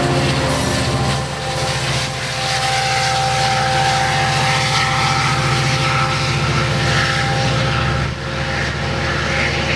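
Diesel passenger locomotive engine running under power with a steady low drone and a high steady whine over it. The sound dips briefly about a second in and again near the end.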